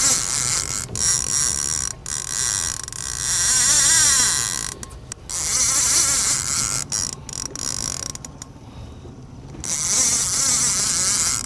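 Daiwa lever-drag conventional reel's drag buzzing as a hooked fish pulls line off against a lightly set drag, in several long runs broken by short pauses.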